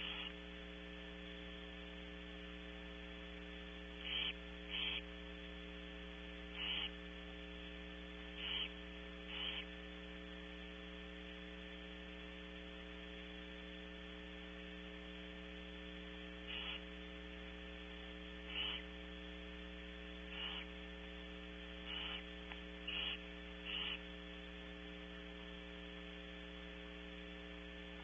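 Steady electrical mains hum on the nest-camera audio, with about a dozen short hisses from barn owls in the nest box, coming irregularly a second to a few seconds apart.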